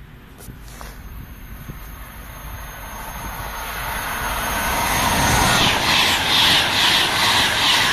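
High-speed passenger train approaching and passing at speed, its rush of noise growing steadily louder. Near the end it becomes a rhythmic pounding roar, pulsing about twice a second as the carriages go by.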